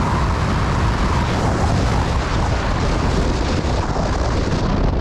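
Heavy wind rush buffeting the microphone of a Yamaha R15 motorcycle at highway speed, around 100 km/h, with the bike's engine running underneath.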